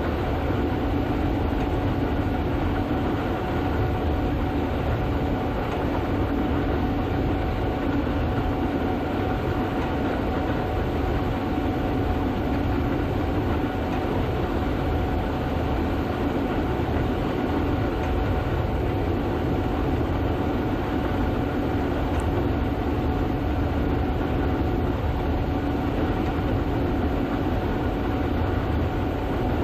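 Gleaner S98 combine running steadily while harvesting soybeans: a constant heavy mechanical rumble with a steady hum and a faint, even whine.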